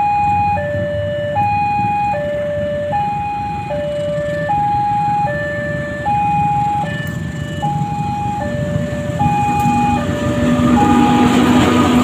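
Railway level-crossing warning alarm sounding a steady two-tone high-low signal, changing pitch about every three-quarters of a second. In the last couple of seconds an arriving KAI diesel locomotive and its train grow louder as they pass, with a steady engine hum and rumble.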